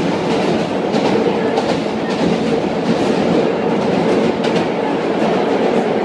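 A 1930s-era New York City subway car running at speed, heard from inside the car: a loud, steady rumble of wheels and running gear, with occasional clicks from the rails.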